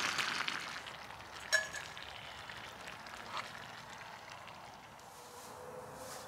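A single light metallic clink with a short ring about a second and a half in, from camping cookware being handled, and a smaller tick later. Underneath is a faint hiss from the steaming curry pot and stove.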